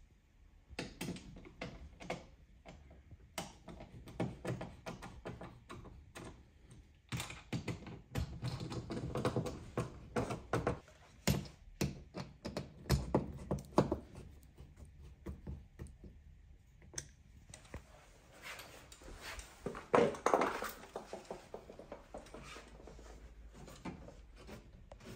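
A hand screwdriver driving screws through a TV wall-mount plate into the wall: irregular clicks, taps and short scraping bouts as the screws turn and the plate is handled.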